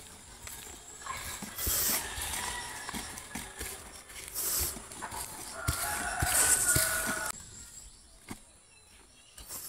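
A rooster crowing, loudest about six seconds in, over short scrapes and knocks of a small hand digging tool working the soil.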